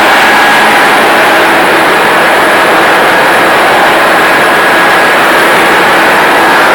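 STX-MAN 6L27/38 six-cylinder medium-speed marine diesel generator running under load at its constant 720 rpm service speed: a loud, steady, unbroken engine-room din with a few faint steady whines within it.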